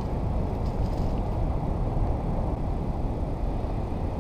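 Wind buffeting the microphone: a steady low rumble, with a few faint clicks about a second in.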